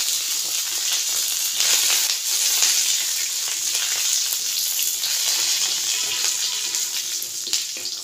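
Chopped garlic, ginger, green chilli and curry leaves sizzling steadily in a little hot oil in a metal kadhai. A metal spatula scrapes and taps the pan now and then as they are stirred.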